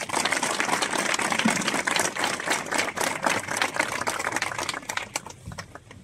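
Crowd applauding: dense clapping that thins out and dies away near the end.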